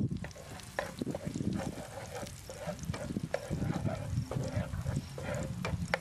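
Spatula stirring and scraping chopped garlic frying in a non-stick pan, with short scraping clicks. A cow moos near the end.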